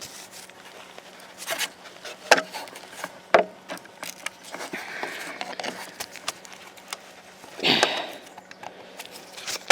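Plastic license plate lamp housing being pushed and worked into its opening in a bumper: scattered clicks, knocks and scrapes, with a louder cluster of rattling near the end.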